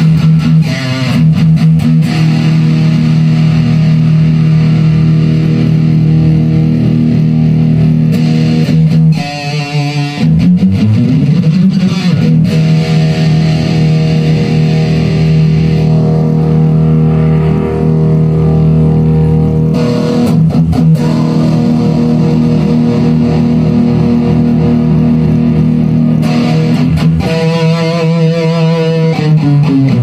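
Electric guitar played through a Marshall Jackhammer JH-1 overdrive/distortion pedal: long distorted chords held for many seconds. The pitch slides and wavers at the chord changes about ten seconds in and again near the end.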